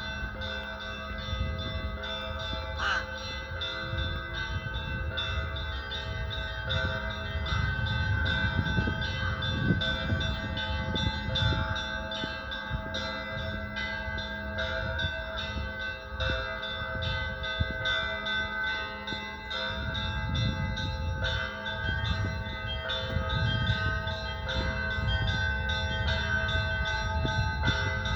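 Russian Orthodox church bells of the Assumption Cathedral in Yaroslavl ringing a peal. Small bells are struck in quick, continuous patterns over the held ringing of larger bells, with a low rumble underneath.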